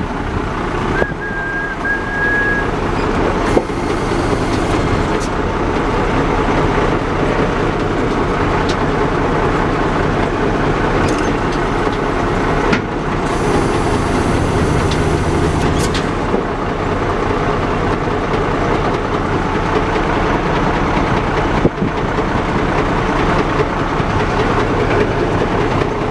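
A 1997 Ford LNT8000 vacuum truck running steadily while the levers of its hydraulic control valve are worked to raise the tank. A brief high whine sounds about a second in, and a louder stretch with a hiss lasts a few seconds around the middle.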